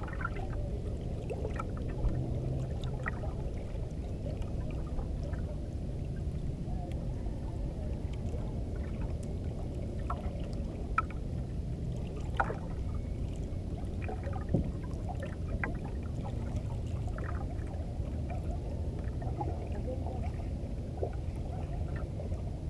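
Steady low rumble of wind and sea around a small bangka fishing boat, with scattered faint knocks and clicks.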